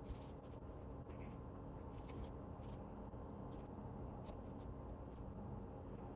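Quiet room hum with scattered faint, irregular light taps and rustles of small movements at a desk.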